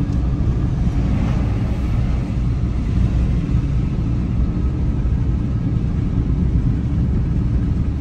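Steady low rumble of a car driving along the road.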